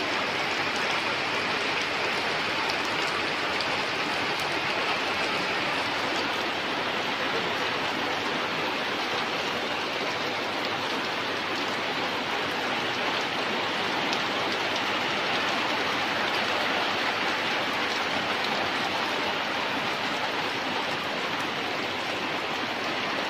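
Heavy rain falling steadily onto waterlogged, flooded ground, an even hiss with no let-up.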